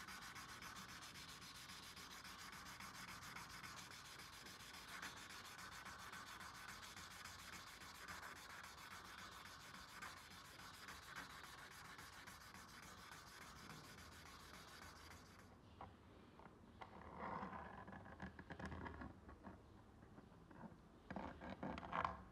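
A rusty steel knife blade being sanded by hand, with quiet, steady back-and-forth rubbing strokes. After about fifteen seconds the sanding stops and gives way to irregular light scratching and handling sounds.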